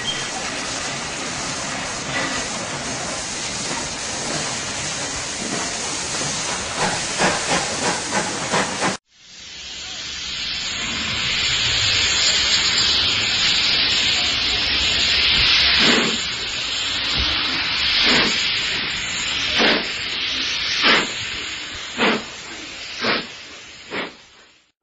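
Dubbed recording of a steam locomotive. First a steady hiss with a few faint quick chuffs, then an abrupt cut about nine seconds in. After the cut a loud hiss of steam builds, followed by heavy exhaust chuffs about a second apart that quicken as the locomotive starts away.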